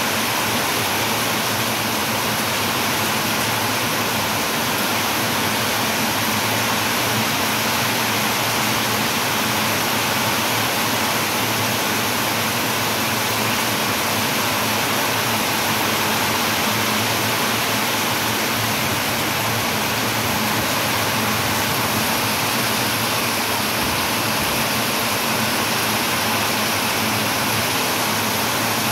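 Heavy downpour, steady and loud, rain hammering onto a brick-paved courtyard and a flooded lane.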